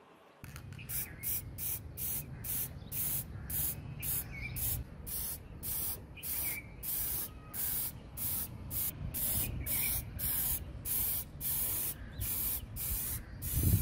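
Aerosol spray can sprayed in short hissing bursts, about two a second, over a steady low rumble.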